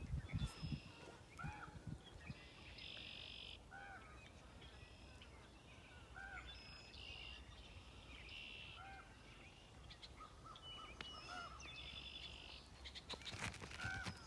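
Geese honking in short calls every second or two, with other birds' buzzy, trilling songs between them, over a low steady background rumble. A few sharp knocks near the end.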